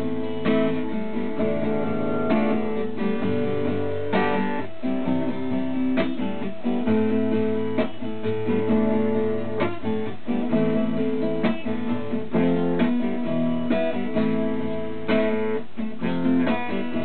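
Acoustic guitar strummed, a chord progression played on its own with no singing: the instrumental outro of the song.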